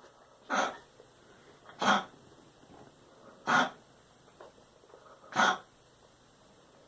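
A dog making short, sharp, explosive breaths that sound like sneezes, four of them about one and a half to two seconds apart, from a dog with a breathing problem.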